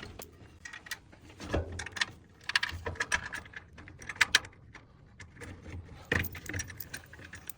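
Scattered metallic clinks and knocks of rack mounting hardware and bolts being handled and fitted, some in quick little clusters.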